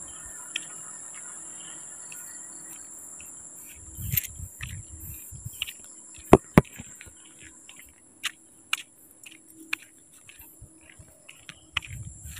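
Steady high-pitched drone of night insects in chorus. Scattered clicks and low knocks cut across it; the loudest are two sharp clicks in quick succession about six seconds in.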